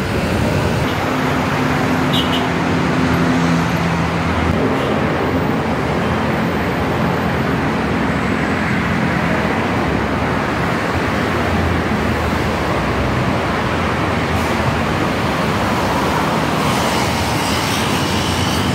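Steady dense road traffic from a busy multi-lane city road, motorcycles, cars and buses going by, with a low engine hum through the first several seconds.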